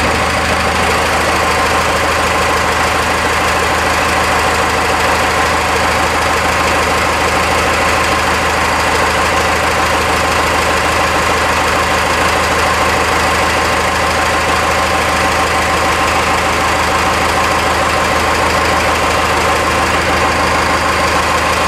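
Cummins diesel engine swapped into a Ford F-150, idling steadily, still short of its warm running temperature.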